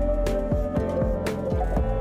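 Background music: a guitar-led tune over a steady beat, with drum hits about twice a second.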